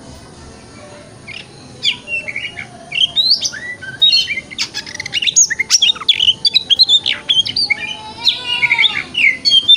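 Oriental magpie-robin (kacer) singing a loud, fast, varied song of sweeping whistles, sharp chirps and rapid rattled notes, starting about a second and a half in. It mixes chattering notes with clear whistled phrases, the 'wikplong' style used as a lure to make other magpie-robins sing.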